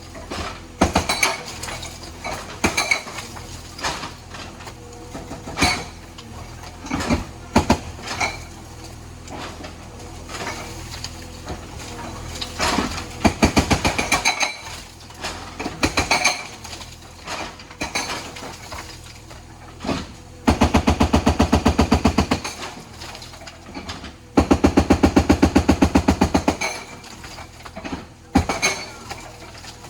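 JCB backhoe loader's hydraulic breaker hammering in two rapid bursts of about two seconds each, over a steady engine hum. Scattered knocks and clatters come before the bursts.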